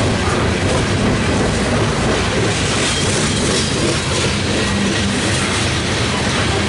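Loaded coal cars of a freight train rolling past: a loud, steady rumble and rattle of steel wheels on the rails.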